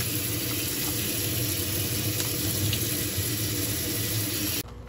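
Kitchen tap water pouring over a plastic tray of tofu noodles and splashing into a stainless steel sink as the noodles are rinsed. The running water is steady, then cuts off suddenly near the end.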